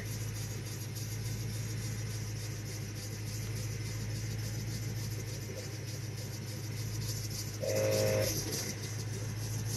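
Jeep engine idling steadily with a low hum. A brief higher tone of about half a second sounds near the end.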